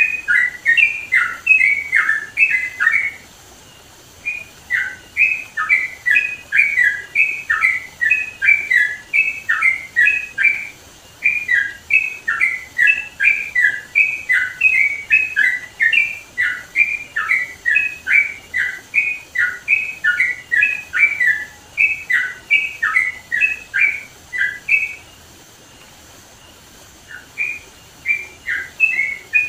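Yellow-vented bulbul singing loudly: long, rapid, bubbling runs of short chattering notes. They break off for a second or so about three seconds in and again near the middle, and for about two seconds near the end.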